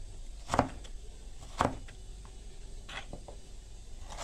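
Crinkle-cut knife chopping carrot on a wooden cutting board: three sharp knocks about a second apart, followed by a couple of fainter taps near the end.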